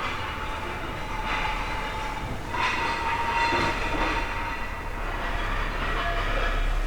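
Construction-site machinery running continuously: a steady high metallic whine over a noisy mechanical clatter, with a few louder surges about a second apart in the first half.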